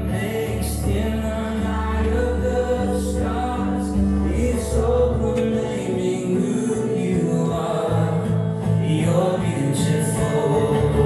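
Slow worship song with singing over sustained chords and bass, swelling up in the first few seconds.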